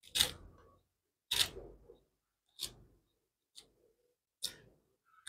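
Small kitchen knife slicing through a handful of fresh herb stems held in the hand, a crisp snick about once a second, six times.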